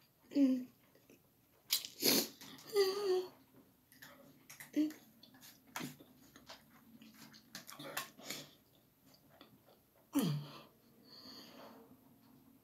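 A person eating fiery-hot instant noodles: chewing and mouth noises with sharp noisy breaths, broken by a few short strained vocal sounds, including a falling groan near the end. These are reactions to the burn of the chili.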